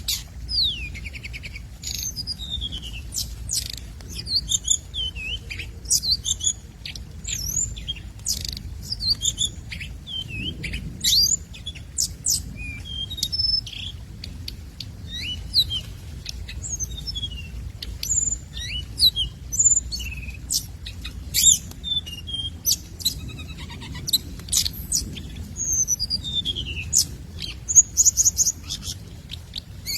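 A hồng hạnh (Siberian rubythroat) singing a long, varied song of short whistled phrases, up- and down-slurred notes and quick trills, one after another. It is lure song, played to call in other hồng hạnh.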